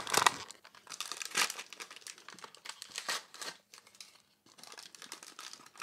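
A collectible figure's packaging wrapper being torn open, crinkling and crackling in irregular handfuls with a short lull about two-thirds of the way through.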